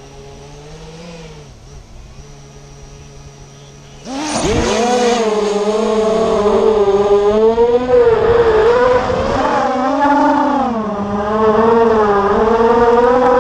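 Racing quadcopter motors and propellers buzzing. A quieter steady hum gives way about four seconds in to a sudden loud climb in throttle, and the high buzz then keeps wavering up and down in pitch as the throttle changes.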